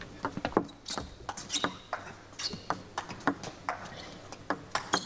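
Table tennis rally: the plastic ball clicking off bats and table in a long, irregular run of sharp clicks, several a second, as an attacker and a chopping defender trade shots.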